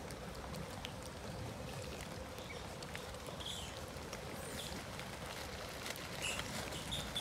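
Steady outdoor background noise, an even hiss with a low rumble, with a few faint short high chirps in the second half.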